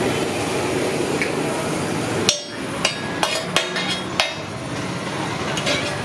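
Metal spatula tapping and scraping on a large flat iron griddle (tawa): a series of sharp metallic clacks with a short ring, starting about halfway through, over a steady background hum of the stall.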